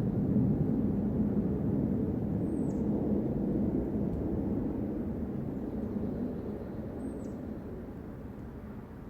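A loud, deep rumble from the sky like a low-flying jet airplane, a steady drone that slowly fades in the second half.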